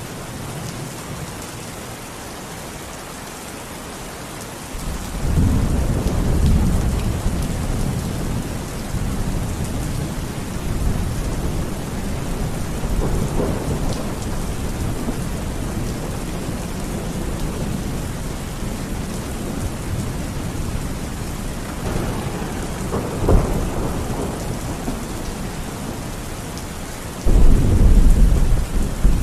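Steady rain pouring, with thunder rolling over it: a long deep rumble sets in about five seconds in, weaker rumbles follow later with one sharp crack, and a sudden loud peal comes near the end.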